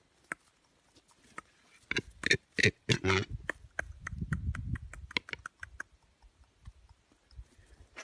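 An animal grunting in four short bursts about two to three seconds in, followed by a low rumbling noise and a run of small clicks.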